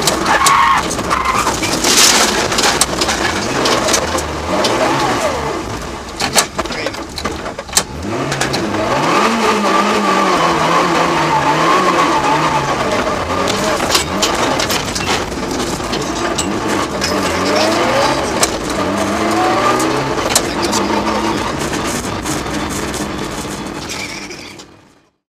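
Mitsubishi Lancer Evo VII rally car's turbocharged four-cylinder engine heard from inside the cabin, rising and falling in pitch as it accelerates and shifts, with many sharp clicks and knocks over it. The sound cuts off near the end.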